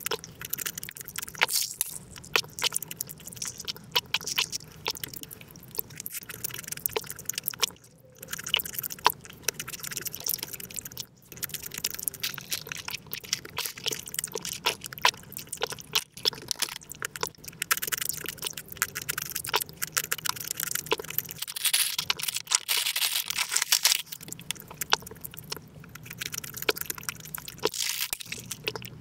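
Close-miked eating sounds sped up about five times: a fast, continuous patter of chewing and wet mouth clicks from eating fruit and sweets, with slurping through a drinking straw from a bubble-tea cup.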